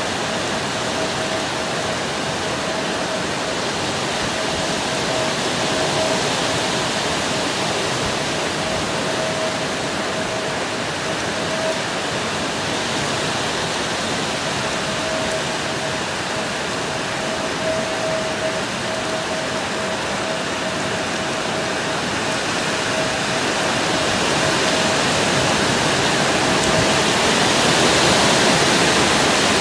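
Heavy thunderstorm rain pouring steadily, a constant rushing hiss that swells louder near the end.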